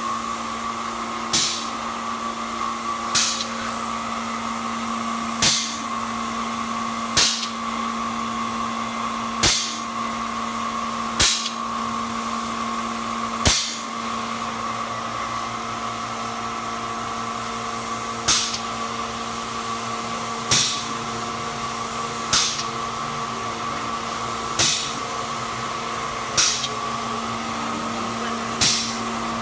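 Air-driven gelcoat spray pump running with a steady hum and hiss, giving a short, sharp puff of air about every two seconds as it cycles. The puffs pause for a few seconds in the middle.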